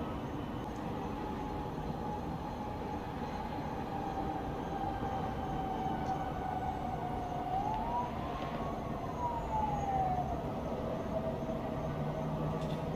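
Distant siren wailing, a single slow tone that drifts down, rises once about seven or eight seconds in and sinks back slowly, over a steady low rumble of town traffic.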